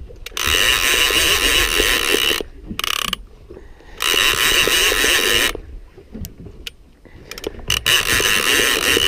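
Conventional big-game fishing reel on a rod in a rod holder, its clicker ratcheting in runs of a second or two as the handle is cranked, with short pauses between runs.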